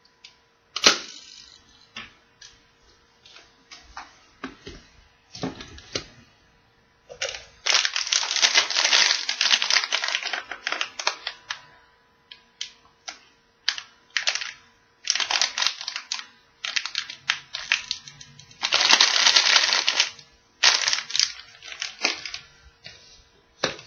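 Thin plastic candy wrapper crinkling as it is handled and opened, in two long stretches of dense rustling, between sharp plastic clicks and taps from small toys and a capsule being handled.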